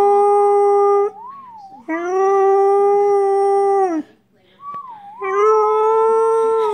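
Samoyed puppy making its whistle-like howl: three long, steady, high notes, the second dipping in pitch as it ends. Short wavering whistled notes come in the gaps between them.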